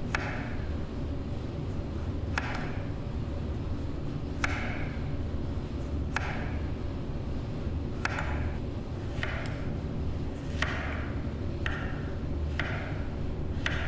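Chef's knife cutting through a peeled beetroot on a wooden cutting board: about ten slow, separate cuts, each a sharp tap of the blade on the board followed by a brief swish.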